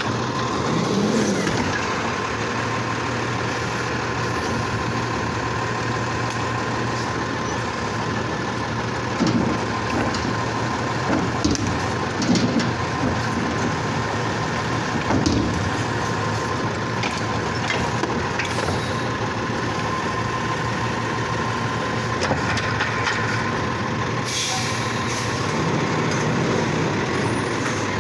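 Automated side-loader garbage truck's diesel engine running, with a steady hydraulic whine, as the side arm lifts a trash cart, dumps it into the hopper and lowers it. Several knocks around the middle come from the cart being shaken empty. A short hiss of air comes near the end.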